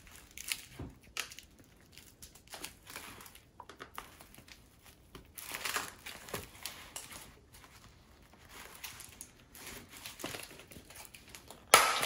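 Irregular crinkling and crackling of plastic as a TP-Link Kasa HS200 smart light switch is handled, pulled and bent to free it from its plastic wall plate, with a sharper, louder crackle near the end.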